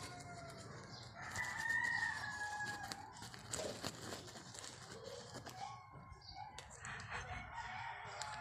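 A rooster crowing: one long drawn-out crow between about one and three seconds in, falling slightly at the end, with fainter calls near the end.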